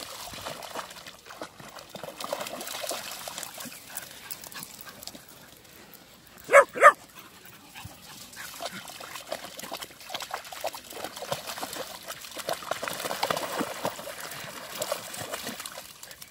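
A dog barks twice in quick succession about six and a half seconds in, over the scattered sounds of dogs splashing in shallow water and stepping about on a wet, muddy lakeshore.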